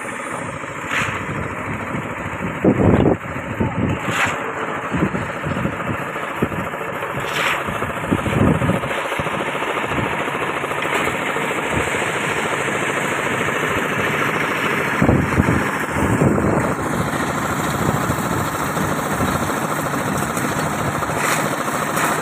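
Concrete mixer's engine running steadily, with occasional knocks and clanks over it.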